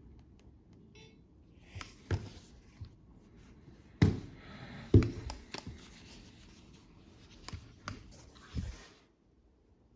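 Hands handling objects at close range: rustling with several knocks and taps, the loudest two about four and five seconds in, stopping about a second before the end.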